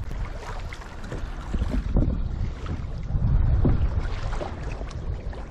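Wind buffeting the microphone and water splashing against a kayak's hull as it moves through chop, a steady rushing noise with a few heavier low bumps from the waves.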